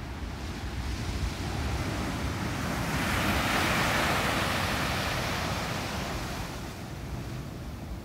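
Ocean surf breaking on a sandy beach: the hiss of one wave crashing and washing up the sand swells to a peak about halfway through, then fades away, over a steady low rumble.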